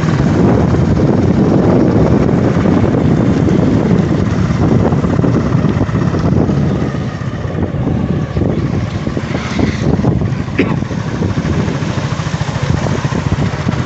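Wind buffeting the microphone on a moving ride, over the low rumble of a motor scooter engine running alongside.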